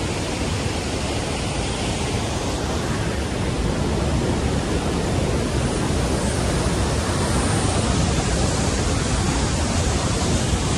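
Large waterfall in full flow: a steady, loud rush of falling water and spray, growing slightly louder a few seconds in.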